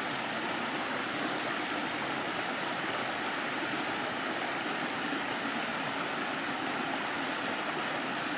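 Small stream waterfall pouring over layered rock ledges into a pool: a steady rush of falling water.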